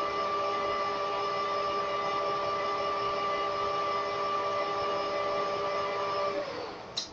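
Metal lathe running with a steady whine from its motor and gearing while a drill in the tailstock chuck bores into the spinning steel workpiece. A little over six seconds in the whine drops in pitch and fades as the lathe is switched off and spins down, followed by a short sharp click.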